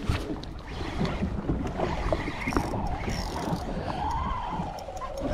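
Boat's motor running at sea under wind and water noise, with scattered clicks and a wavering whine that rises and falls in the second half.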